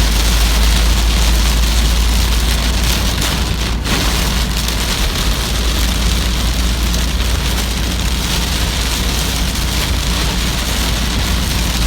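Heavy rain falling steadily, a loud even hiss over a deep low rumble.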